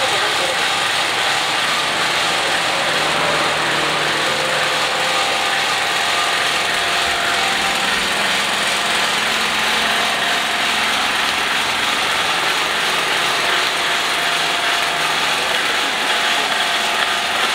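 A steady, continuous mechanical rattling noise that holds the same level throughout.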